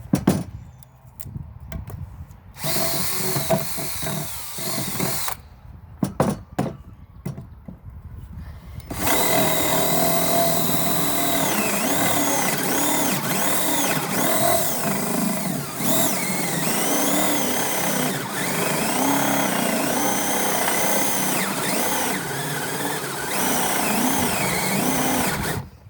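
DeWalt DC970 compact 18-volt cordless drill boring a hole. It runs briefly a few seconds in, gives a few clicks, then from about 9 seconds in runs continuously under load for some 16 seconds, its whine wavering in pitch, and stops just before the end.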